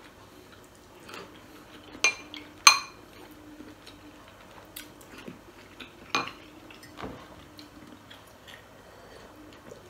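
Metal spoon clinking and scraping against a glass bowl while eating, a handful of separate clinks. The loudest comes near the three-second mark and rings briefly.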